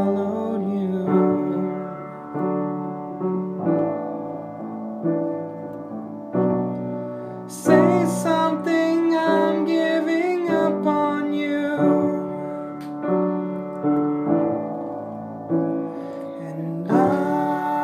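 Piano playing slow, sustained chords, struck again about every second and a half, with a wavering voice-like melody over them in the middle.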